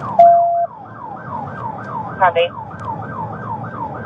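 Police car siren on a fast yelp, a falling whoop repeating about three times a second. A short steady radio beep sounds just after the start.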